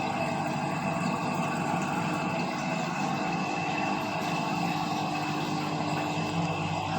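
Steady mechanical hum of saltwater aquarium pumps and filtration equipment, with a couple of constant tones over a wash of noise and no distinct events.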